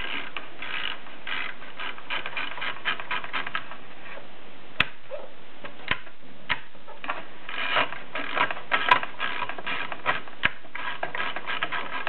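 Mercedes Prima typewriter being typed: runs of quick key strikes, broken by a few sharper, louder single clacks and a short pause near the middle.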